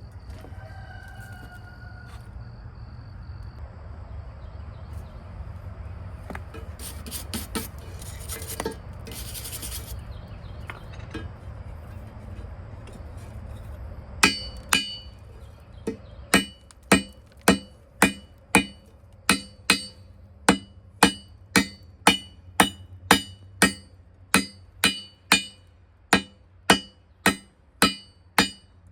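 Steel being hammered on an anvil in a steady rhythm of nearly two ringing strikes a second, starting about halfway through. Before that, a steady low hum with a few brief scraping sounds.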